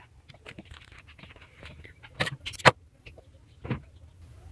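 Light clicks and taps of hands handling the thread at the needle and presser foot of an industrial straight-stitch sewing machine while threading it. Scattered small clicks, with a few sharper ones in the second half; the loudest comes a little under three seconds in.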